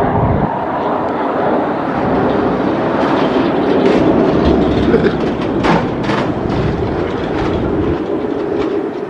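Loud steady mechanical rumble with a low drone, with scattered clacks and knocks in the middle few seconds.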